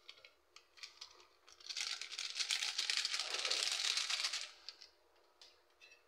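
A plastic packet crinkling as it is handled, a dense crackle lasting about three seconds from a little under two seconds in, with a few light clicks and taps before it.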